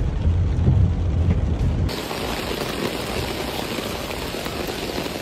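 For about the first two seconds, a low rumble inside a car driving through floodwater. Then an abrupt cut to heavy rain pouring onto flooded pavement, a steady, even hiss.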